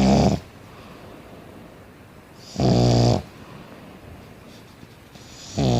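A pet snoring loudly in a steady rhythm: three snores about three seconds apart, each about half a second long, with a fainter breath in between.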